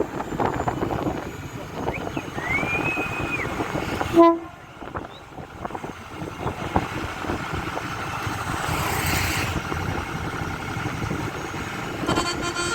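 Steady rumble and noise of a moving vehicle in street traffic, with one short horn toot about four seconds in.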